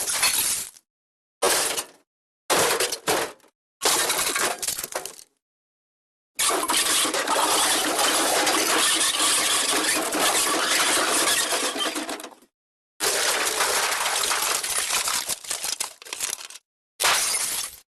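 MGM 'elephant smash' stock sound effect: a crash of shattering and clattering debris, played over and over in edited pieces of different lengths, the longest running about six seconds in the middle. Each piece cuts off abruptly into silence.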